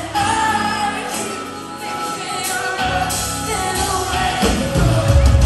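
A live band with a female lead singer playing in a concert hall, heard from the crowd. Singing over guitar, with the bass and drums thin for the first few seconds, then coming back in about three seconds in and getting louder near the end.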